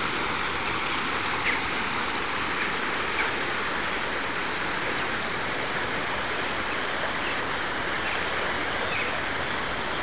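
Steady rush of white water tumbling down a stepped concrete channel, with one sharp click about eight seconds in.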